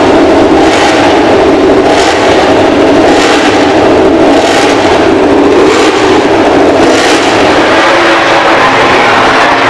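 MotoGP racing motorcycle engine running loud and steady, with a brief rev pulse about every second.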